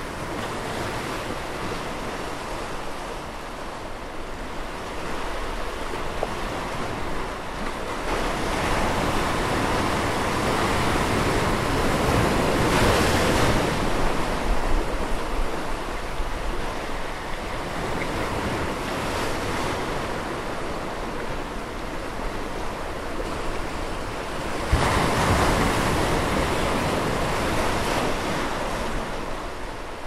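Ocean surf washing into a sinkhole in shoreline rock and churning: a steady rush of water that swells to its loudest around twelve to fourteen seconds in, then surges again suddenly about twenty-five seconds in before fading out at the end.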